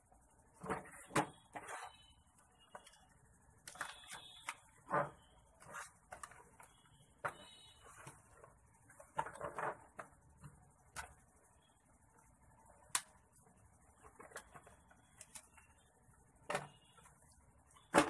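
Unboxing handling noise: scattered rustles, clicks and light knocks of cardboard and plastic packaging as a toy RC rock crawler and its remote are lifted out of their box and set on a table.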